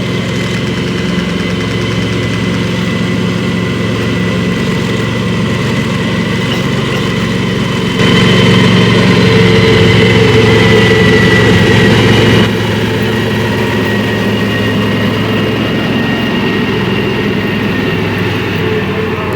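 Heavy diesel engine running steadily, with a faint high whine over its hum; about eight seconds in it gets suddenly louder for around four seconds, then drops back.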